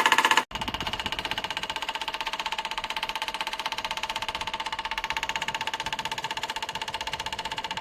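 Bladeless tower fan's motor running with a steady, rapidly pulsing hum. It cuts out briefly about half a second in, then carries on at a lower level.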